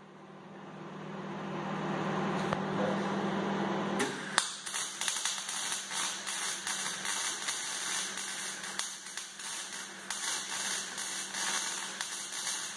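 A steady hum with hiss building for about four seconds, then electric arc welding on steel: a continuous irregular crackling and sizzling with brief breaks, lasting to the end.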